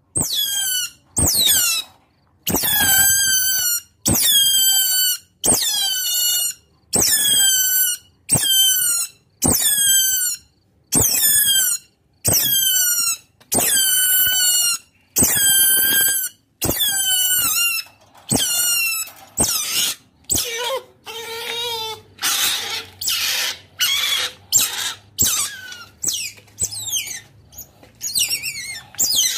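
Otter calling with a series of high squeaking calls, about one a second, each falling slightly in pitch. In the last third they break into quicker, shorter chirps.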